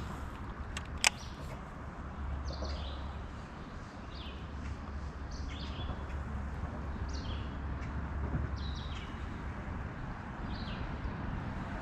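A bird calling again and again, short downward-sliding notes about every one to two seconds, over a steady low rumble. One sharp click about a second in.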